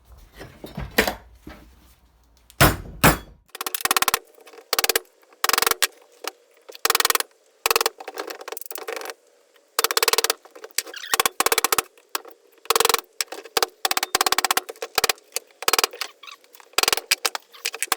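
Hammer knocks on small transformers being knocked apart: a few single bangs, then a fast, continuous run of short, sharp clattering knocks.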